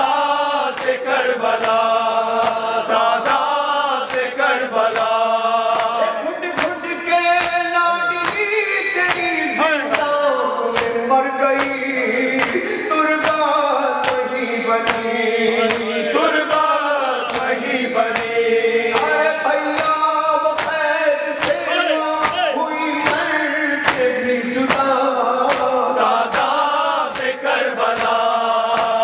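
Noha, a Shia lament, chanted by a male reciter with a chorus of mourners joining in, over regular sharp beats of chest-beating (matam) that keep the rhythm.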